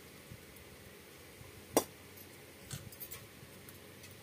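Quiet sounds of eating rice by hand off a banana leaf: one sharp click a little under two seconds in, and a few softer clicks about a second later.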